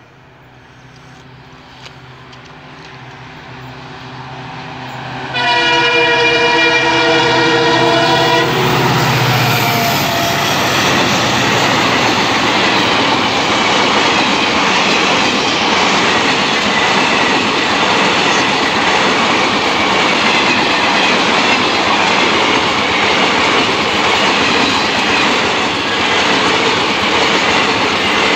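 An approaching diesel-hauled passenger train grows steadily louder. The locomotive sounds its horn loudly for about three seconds as it arrives, its engine passes, and then a long line of coaches rushes by at speed with steady wheel clatter on the rails.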